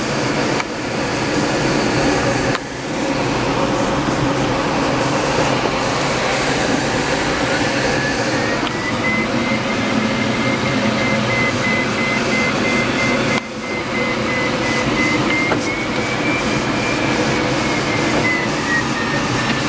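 Light aircraft's engine and propeller droning steadily, heard inside the cabin, with a thin faint whistle that wavers slightly in pitch. The drone drops briefly twice.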